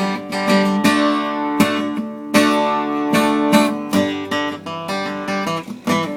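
Acoustic guitar strummed in uneven strokes, each chord left to ring between strums.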